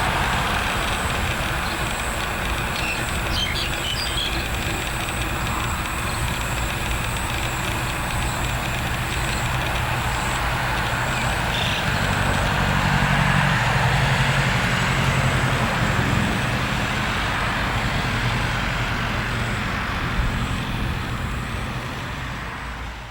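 Roadside ambience of passing road traffic, with a vehicle engine growing louder and passing about halfway through. A steady high insect trill runs underneath, a few bird chirps come about three seconds in, and the sound fades out at the end.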